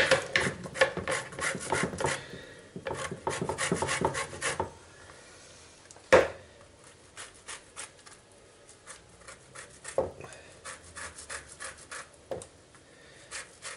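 Orange peel rubbed rapidly back and forth over a long stainless steel rasp grater, grating off the zest: quick rasping strokes for the first few seconds, then sparser strokes with a few sharp knocks, the loudest about six seconds in.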